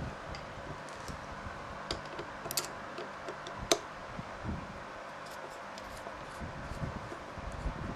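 Light metal clicks and taps of a small hand tool and parts being handled on a carburetor, over a steady low hum, with one sharper click about halfway through.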